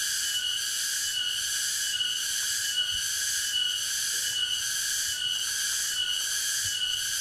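Steady high-pitched chorus of insects, swelling and fading in an even rhythm.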